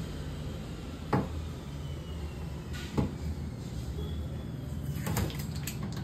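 Plastic clicks and knocks from the filter access cover at the bottom front of a Samsung front-load washing machine being handled and pressed to pop it open: a single knock about a second in, another about three seconds in, then a quick cluster of clicks near the end.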